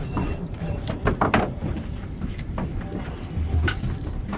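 Low, uneven rumble on a small boat at sea, with a few short clicks.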